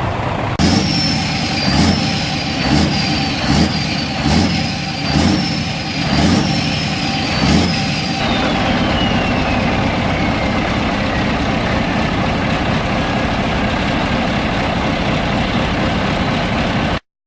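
Scania V8 truck engine with an open exhaust pipe, blipped about eight times in quick succession with a high turbo whistle over the revs. The revving then stops and the turbo whistle winds down in a long falling glide as the engine settles to idle. The sound cuts off abruptly near the end.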